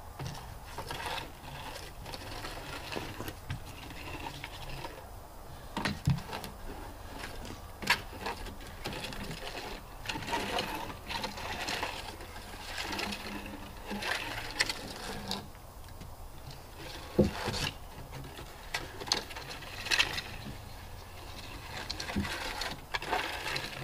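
Scattered knocks and scraping of hand tools and boots on cedar cants, with a few sharper knocks standing out.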